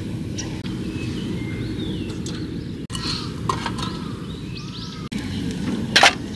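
Steady low outdoor background noise with birds chirping several times in the middle, and one sharp clatter about six seconds in.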